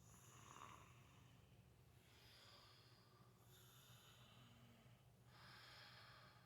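Faint snoring of a sleeping baby and its mother: soft, breathy snores about every second and a half.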